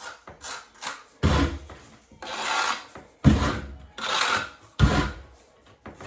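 A series of rough scraping strokes from hand tile work, about eight in a row of uneven length, some starting with a low knock.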